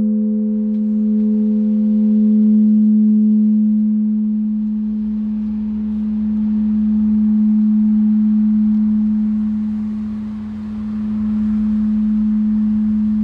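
A bronze church bell, strike tone A-flat, sounding on after its last stroke: its deep hum tone hangs on, swelling and easing every few seconds, while the higher partials die away within the first few seconds. A low rumble comes in about halfway through.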